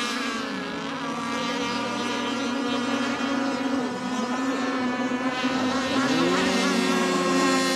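Several fast radio-controlled racing boats running at speed, their engines making an overlapping high whine of several tones. About six seconds in, one engine's pitch climbs sharply and it grows a little louder.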